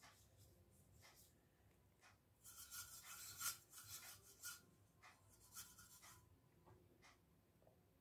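Faint scratchy rubbing of a paintbrush, a quick run of strokes starting about two and a half seconds in and lasting about two seconds, with a few more a second later; otherwise quiet room tone.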